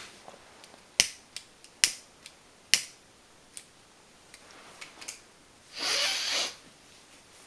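Improvised sound effects: three sharp clicks or taps about a second apart, with fainter ticks between, then a short hiss near the end.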